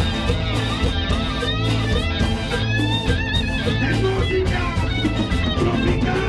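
Live band playing a song: strummed acoustic guitar over bass and drums keeping a steady beat.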